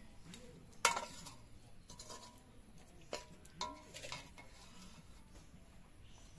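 Steel ladle scraping and clinking against a black kadai while chicken curry is scooped out and served onto a steel plate. A handful of sharp clinks, the loudest about a second in.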